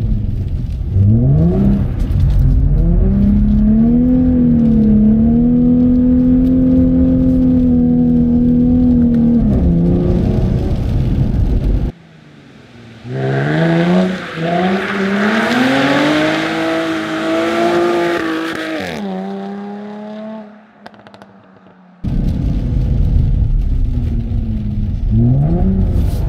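Jaguar F-Type's supercharged V6 engine revving and running hard through drifts: first a deep, rumbling note from inside the cabin, then heard from outside as the car slides through a hairpin, its pitch rising and falling over a hiss of tyre noise, then inside the cabin again with the revs climbing near the end. The sound drops to a low level briefly about twelve seconds in and again about twenty seconds in.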